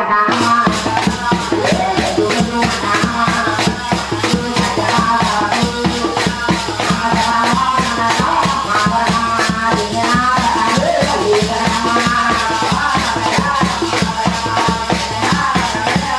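Live folk devotional song: a male voice singing over a drum and small hand cymbals that keep a fast, steady beat.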